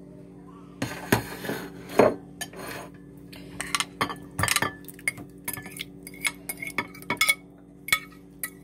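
A metal utensil scraping and clinking against a glass mixing bowl as the last of a thick egg-and-vegetable filling is scooped out: many irregular clicks and short scrapes.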